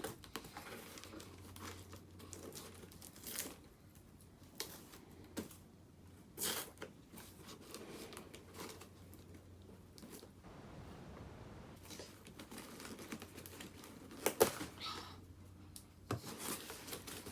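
Paper and plastic packaging being torn open and crumpled by hand: intermittent rustling with a few short, sharp rips.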